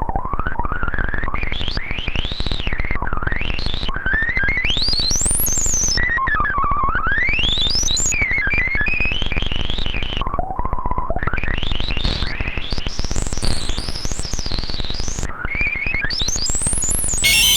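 Analog synthesizer sound effect imitating a sci-fi space warp: a buzzing tone sweeps up and down in wide, repeated pitch glides, several rising very high, over a dense rumbling texture. Near the end it gives way to a steady held tone with many overtones.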